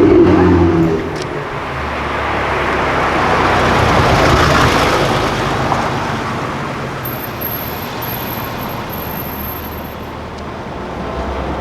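A car engine's loud note drops away about a second in. Road traffic noise then swells as a vehicle passes and fades again.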